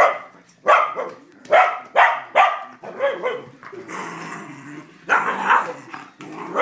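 Small white-and-tan terrier barking in quick sharp barks, about two a second, then growling for a longer stretch and barking again. It is guarding the children against a man play-wrestling with them.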